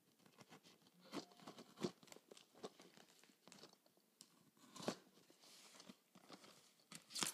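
Packing tape on a cardboard box being cut and pulled open: irregular crackling and crunching of tape and cardboard, with sharper rips about a second in, near two seconds, around five seconds and just before the end.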